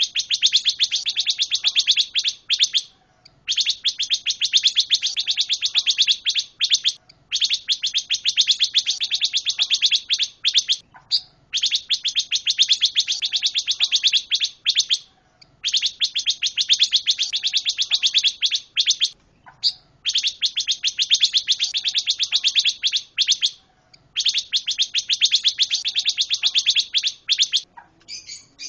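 Pancawarna songbird singing in full voice: seven long runs of very fast, rapidly repeated chattering notes, each about three to four seconds long, with short pauses between them.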